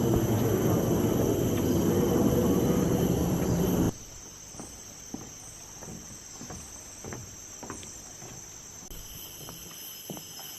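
Steady high-pitched insect chorus, with short knocks of footsteps on a wooden boardwalk about twice a second. For the first four seconds a loud low rushing noise covers it, then cuts off abruptly.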